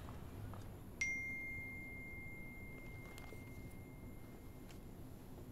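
A single bright electronic ding, a phone's notification alert, about a second in, ringing on as one clear tone and fading away over about three seconds.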